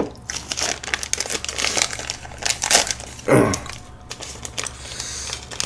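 Clear plastic cookie wrapper crinkling as a cookie is unwrapped by hand, with a short vocal sound about three and a half seconds in.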